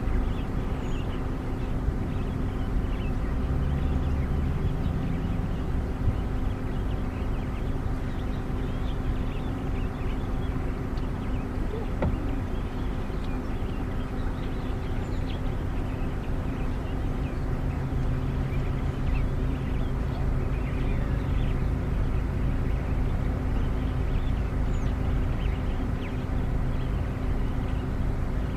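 A vehicle engine idling steadily, with faint bird chirps over it.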